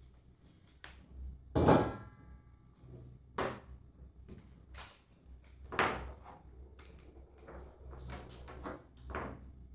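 Tools and small metal parts being handled and set down on a wooden workbench: a string of separate knocks and clatters, the loudest about two seconds in with a short ring after it.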